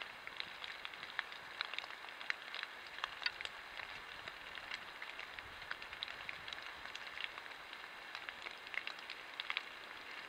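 Water drops pattering on leaves and brush: scattered, irregular light ticks over a steady hiss.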